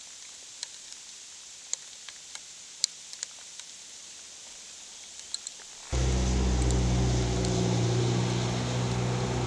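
A few faint, scattered ticks over a quiet hiss, then about six seconds in a steady, low engine hum cuts in suddenly and runs on.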